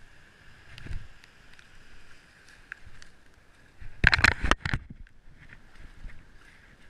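Surf washing in over the shallows, with wind on the microphone. A cluster of loud knocks comes about four seconds in, as the camera is brushed or handled.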